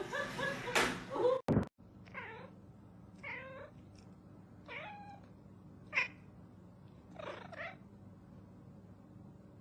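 A domestic cat meowing five times, one call every second or so.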